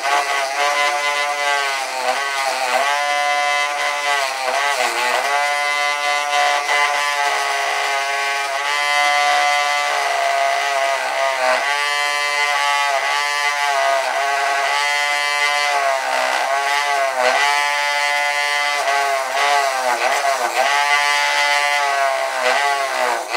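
Electric bench grinder running while the edge of a name plate is ground against its wheel. The motor's hum dips in pitch and recovers again and again, about once a second, as the piece is pressed on and eased off.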